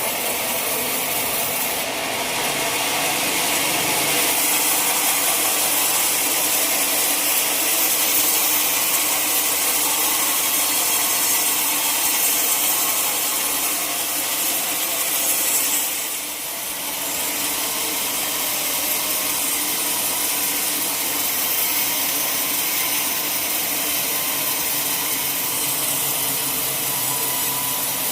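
Sawmill saw cutting through a log, a steady hissing cut that dips briefly about halfway through.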